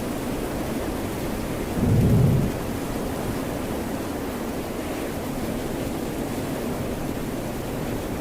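Steady hiss of rain and ocean surf, with a short low rumble about two seconds in.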